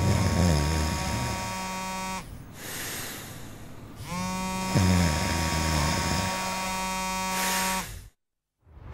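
Mobile phone vibrating on a glass tabletop: a steady electric buzz in two long spells, the second starting about four seconds in after a short pause.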